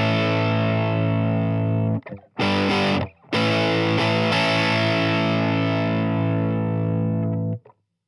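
Electric guitar played through a Fender Champion 20 amp on its British 60s (red) voice, giving a distorted tone: a long held chord, a short chord about two and a half seconds in, then another long ringing chord that is cut off suddenly shortly before the end.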